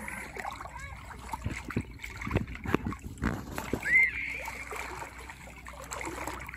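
Shallow seawater splashing and trickling in short, irregular strokes, as of someone wading over rocks.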